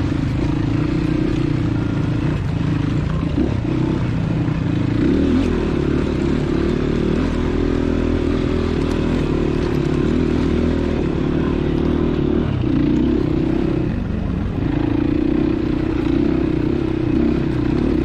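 Crossfire Cross X 250 SE dirt bike engine running under throttle on a rough uphill dirt trail, its note easing off briefly a few times as the throttle changes.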